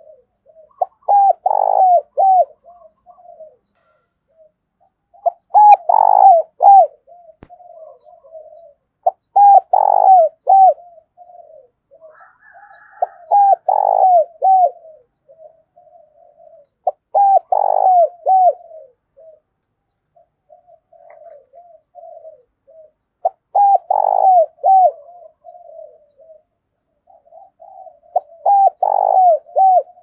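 Spotted dove cooing. It gives a phrase of three or four loud, quick coos about every four to five seconds, seven phrases in all, with softer low coos between them.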